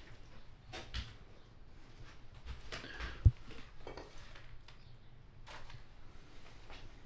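Footsteps and scattered small knocks of someone moving through a room, with one sharp knock a little over three seconds in.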